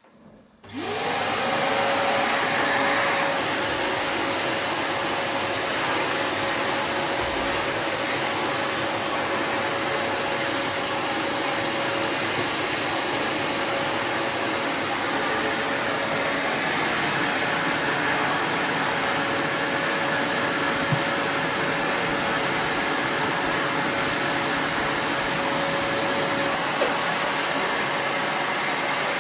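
Kärcher WD 3 wet-and-dry vacuum switched on about half a second in, its motor spinning up with a brief rising whine and then running steadily with the even rush of suction air.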